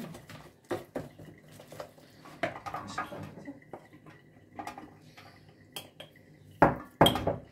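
Dishes and cutlery clinking and clattering as they are handled and set down, with two sharp knocks close together near the end.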